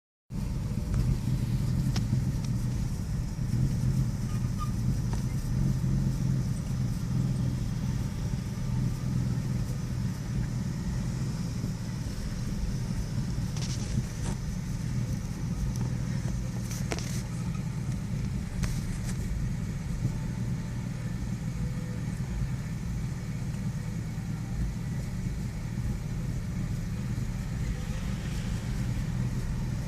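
2001 Nissan Xterra engine idling with a steady low rumble that wavers slightly in level: the rough idle the owner reports, which comes and goes and goes along with a misfire. A few brief faint ticks sound near the middle.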